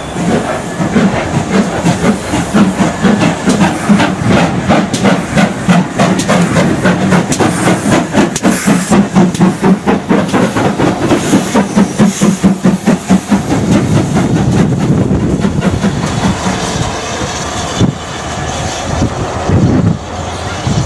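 Double-headed 2-6-0 mogul steam locomotives, ex-SR 31806 and ex-GWR 5322, working a train past at close range: regular exhaust beats about three a second, with steam hiss and wheels clicking over the rail joints. The beats die away after about 14 seconds.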